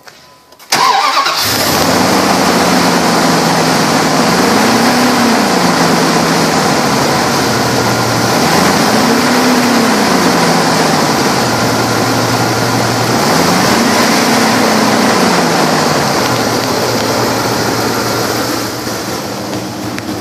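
1996 Dodge Ram 2500 truck engine cranking and starting about a second in, then running at a loud steady idle. It is revved three times, each a short rise and fall in pitch, and settles back to idle after each.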